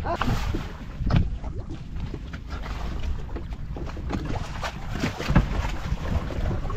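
Wind buffeting the microphone on a small open fishing boat at sea, with water against the hull and scattered short knocks and clicks as a fishing line is handled.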